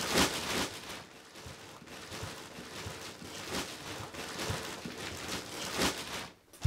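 Clear plastic furniture slipcovers crinkling and rustling irregularly as people shift on the covered sofa and chairs, with a single sharp snap at the very end.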